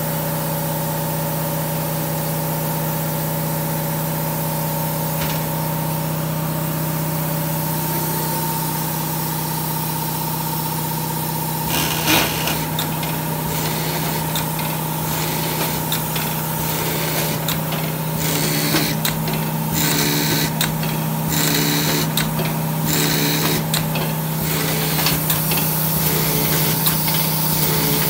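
Kar-Pol 216 pneumatic seed-tray seeder running with a steady motor hum. About twelve seconds in, its nozzle bar starts working with clicks and hissing. Toward the end these come in bursts about once a second.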